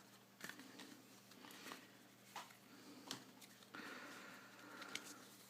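Near silence with a few faint, scattered clicks and short rustles of a card game's plastic insert and cards being handled, over a low steady hum.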